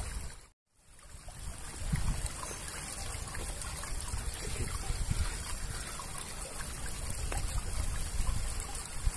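Water running and trickling steadily through a concrete drain outlet. The sound cuts out briefly about half a second in.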